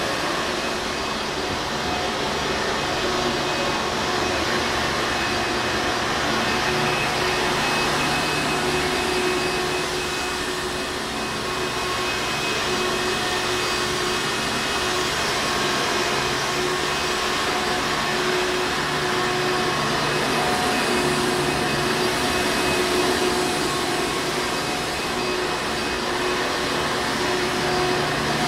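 Hoover Encore Supreme vacuum cleaner running continuously: a steady motor hum under a constant rush of air, with small swells in level now and then.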